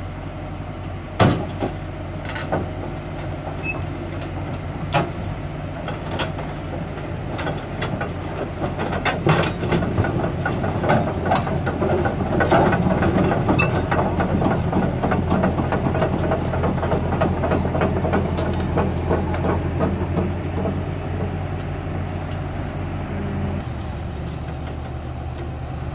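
Kobelco SK260LC-10 excavator's diesel engine running steadily while it drives down off a lowboy trailer, its steel tracks clanking over the ramps and ground, the clanking busiest and loudest in the middle. The engine note changes near the end.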